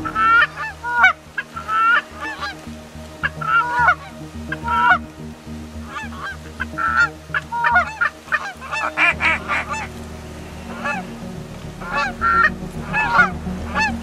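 A flock of Canada geese honking, many short overlapping calls in quick succession.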